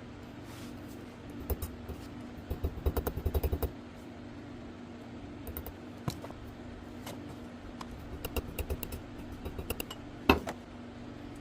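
Small hard objects handled on a workbench: scattered clicks and taps, a quick rattling run of clicks about three seconds in, and one louder knock near the end, over a steady low hum.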